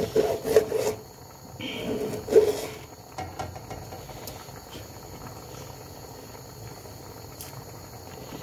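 A kitchen knife slicing chorizo on a plastic chopping board, with a few soft taps of the blade on the board. In the first three seconds a man makes wordless vocal sounds, the loudest thing heard.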